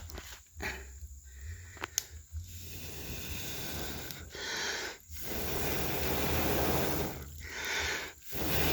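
A person blowing hard on a wood cooking fire to liven it: a series of long, rushing puffs of breath, about four, each broken off by a short pause to inhale. A few sharp knocks come before the blowing starts.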